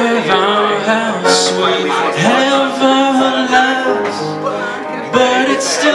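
Live song: a man singing with held, wavering notes over piano accompaniment.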